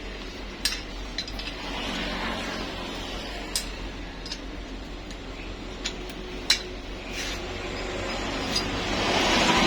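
Scattered light metallic clinks and taps of tools and engine parts being handled, over a steady low hum; a broad hiss swells near the end.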